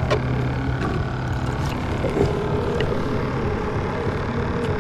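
Motorboat engine running with a steady drone, its low hum fading after about a second and a half, with a few faint clicks.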